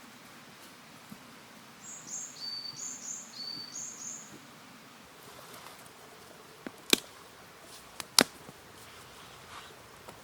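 A bird sings a short phrase of high whistled notes, each dropping in pitch, repeated a few times. Later come two sharp cracks about a second apart, the loudest sounds here.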